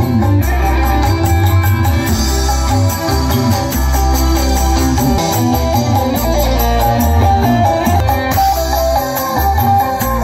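Loud music played through a row of large outdoor sound-system speaker stacks, with heavy bass under a melody.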